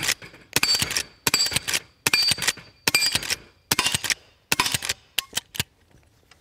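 A .357 Henry X lever-action rifle fired rapidly, seven shots about three-quarters of a second apart with the lever worked between each. Then come a few lighter metallic clicks of the action.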